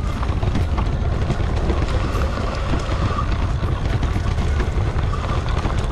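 Electric mountain bike riding over a leaf-covered forest dirt trail: a steady low rumble of the ride with many small clicks and rattles from the tyres and bike over bumps and twigs, and a faint whine coming and going.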